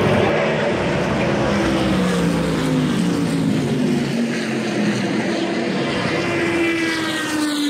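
Vintage race cars running at speed on the track, several engines at once, their notes falling in pitch as cars go past and other engine notes rising toward the end.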